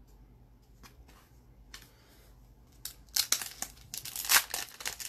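A few faint clicks, then from about three seconds in a loud run of crinkling and tearing as a hockey card pack wrapper is ripped open.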